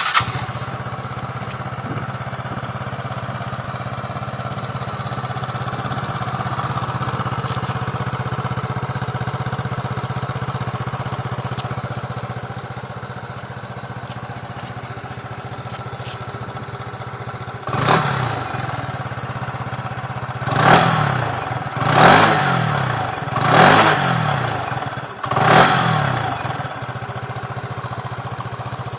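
Motorbike with an aftermarket performance exhaust starting up and idling steadily, then revved in five quick throttle blips, each rising and falling in pitch, before settling back to idle.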